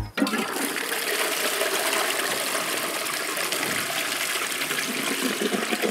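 Toilet flushing: water rushes suddenly into the bowl just after the start, then pours in steadily around a load of biscuits.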